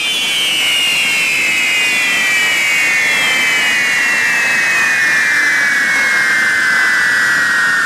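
Several carretilles, correfoc spark-fountain fireworks fixed on a pole-mounted cross frame, burning together: a steady rushing hiss with a shrill whistle that slides slowly downward in pitch.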